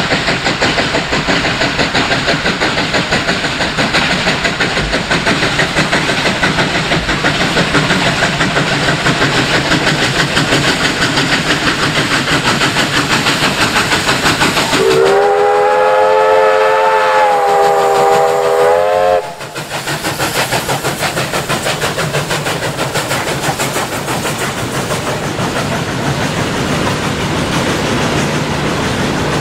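Two Victorian Railways K-class 2-8-0 steam locomotives working hard as they pass, with a fast, even beat of exhaust chuffs. A several-toned steam whistle sounds for about four seconds past the middle. Then the carriages roll by, their wheels clattering over the rail joints.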